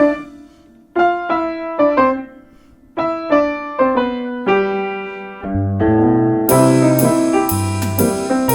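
Instrumental music: a piano plays short melodic phrases of single notes with brief pauses between them. About five and a half seconds in, low bass notes join, and a second later a drum kit with cymbal hits comes in and the music grows fuller.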